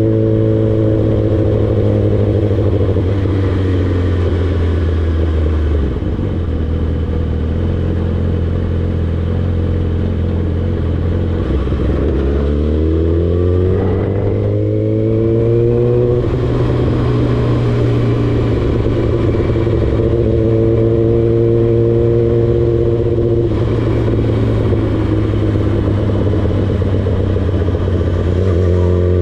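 Yamaha R6 sport bike's 600 cc inline-four engine under way. Its pitch drops over the first few seconds as the bike slows, holds steady, climbs again from about twelve to sixteen seconds in as it accelerates, then settles into a steady cruise before rising once more near the end.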